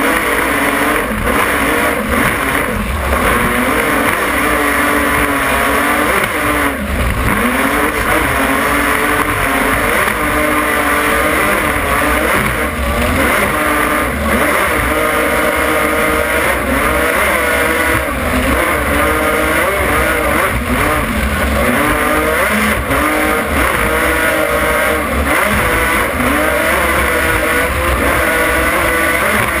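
Offshore racing powerboat's engines running flat out, loud and steady, their pitch wavering up and down as the hull rides the waves, over a rushing hiss of spray and wind, with a few brief thuds.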